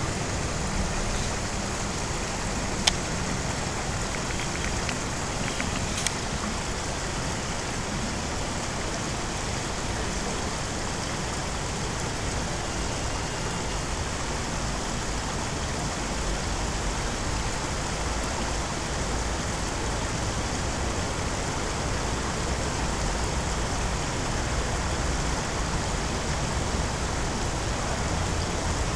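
A steady, even rushing noise with no clear pitch, and two faint clicks about three and six seconds in.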